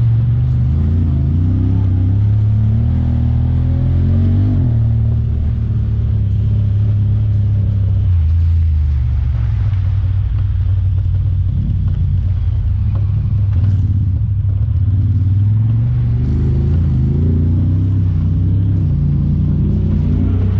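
Honda Talon 1000R side-by-side's parallel-twin engine running under way, its pitch rising and falling repeatedly, with a few sudden steps.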